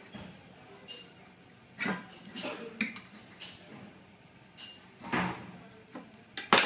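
Handling noise of marking-out tools on steel trunking: a steel rule and square clinking and scraping against the sheet-steel section, with a few light clicks and a sharp metallic knock just before the end.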